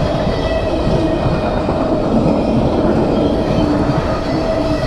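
Empty mixed freight train rolling past: a steady rumble and rattle of the cars on the track.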